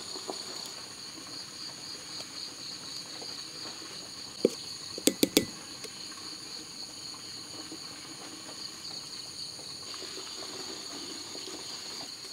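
Insects shrilling steadily in the background, a constant high-pitched drone. About four and a half seconds in there is a single sharp knock, then three quick knocks half a second later.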